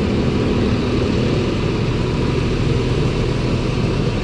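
Tractor engine idling steadily, with a low, even hum.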